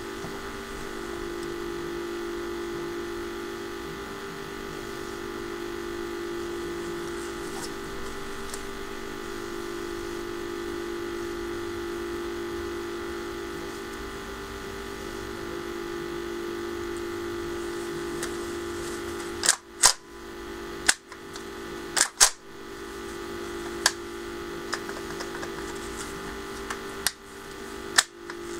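Custom airsoft bullpup carbine fed from KJW KC-02 gas magazines, firing single semi-automatic shots: about seven sharp cracks, irregularly spaced, starting about two-thirds of the way in. Before the shots there is only a steady hum.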